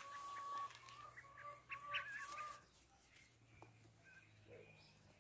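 Goslings peeping: a string of short whistled calls, going much quieter after about three seconds with only a few faint peeps.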